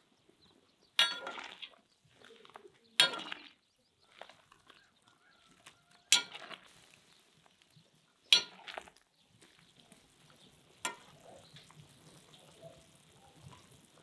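Metal utensil knocking against a cauldron of boiling meat: five sharp clanks a couple of seconds apart, each ringing briefly, with faint stirring sounds between.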